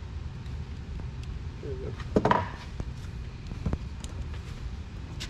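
Small clicks and a light clatter of wires, connectors and parts being handled on a workbench, with one louder knock about two seconds in, over a steady low hum.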